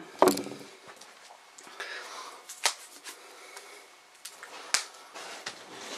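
Faint rustling of hands handling things, with a few sharp clicks; the clearest come about two and a half seconds in and near the end.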